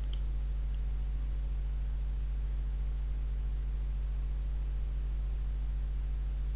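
Steady low electrical hum with a faint hiss, the recording's noise floor, and a single mouse click right at the start.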